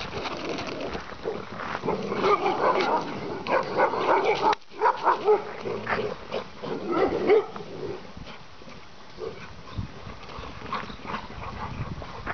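Dogs barking repeatedly during a chase along a fence, many short barks close together, then fewer and fainter after about eight seconds.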